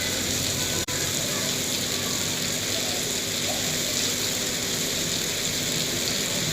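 Heavy monsoon rain pouring steadily, an even hiss. It cuts out for an instant about a second in.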